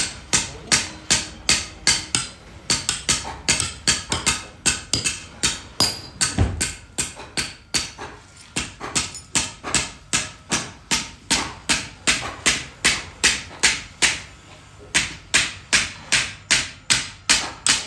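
Hammer striking steel in forging, blow after blow at a steady pace of about three a second, each strike sharp and ringing.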